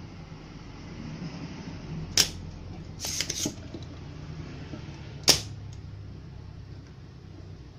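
Spring-loaded desoldering pump firing twice with sharp snaps about three seconds apart, sucking molten solder off an IC's pins; a quick cluster of smaller clicks comes between the two snaps, over a steady low hum.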